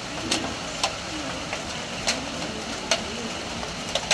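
Steady rain falling on a corrugated metal roof, with heavier drops striking the sheet metal in sharp, irregular ticks about once a second.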